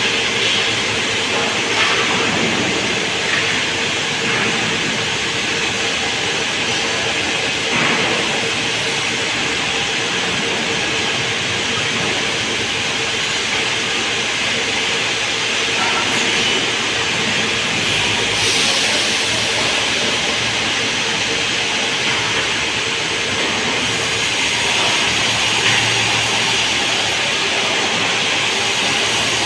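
Sawmill saw and machinery running while merbau timber is cut and fed along a steel roller table: a steady loud mechanical noise with a constant hum. A few short knocks come through, near the start and about eight seconds in.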